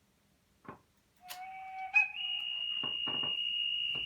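Märklin S3/6 model steam locomotive's mSD/3 sound decoder playing a high, steady whistle-like tone. It starts about a second in over a lower note, steps up in pitch about half a second later and holds, with a few short bursts of noise beneath it.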